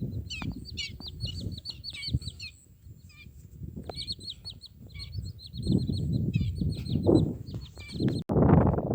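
Many birds calling, short high-pitched calls in quick chattering runs, over a low rumbling noise that grows louder in the second half and cuts off abruptly near the end.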